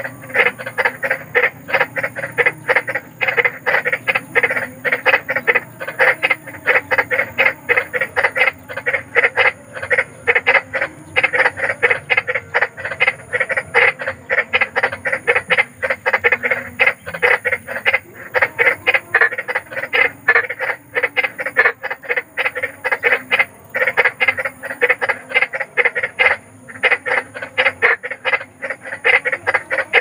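Frogs croaking in a fast, unbroken run of short calls, several a second.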